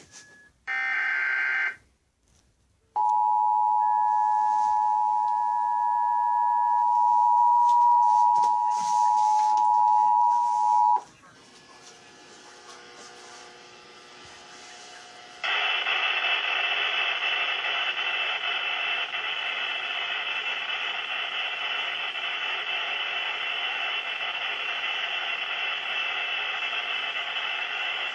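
Emergency Alert System broadcast: the last of the SAME header's buzzy data bursts, then the two-tone attention signal held steady for about eight seconds and cutting off sharply, signalling an emergency alert. After a quieter stretch comes steady radio static hiss.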